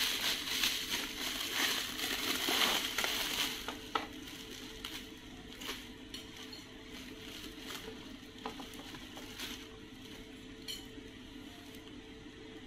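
Clear plastic packaging crinkling as a part is unwrapped, loud for the first three or four seconds, then quieter rustling and a few light clicks of small parts being handled, over a faint steady hum.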